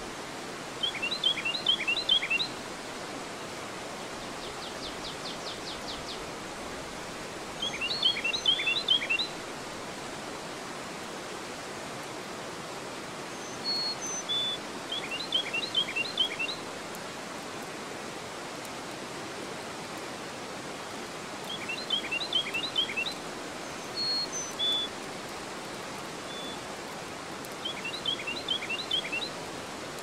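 Steady rush of river water spilling over a low dam weir into rapids. A songbird repeats a short phrase of quick high notes five times, about every six seconds, with a few single high chirps between.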